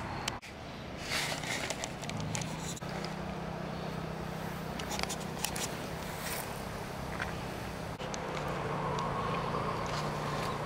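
Outdoor ambience: a steady low hum under a noisy background, with scattered clicks and rustles, broken abruptly about half a second in and again near eight seconds.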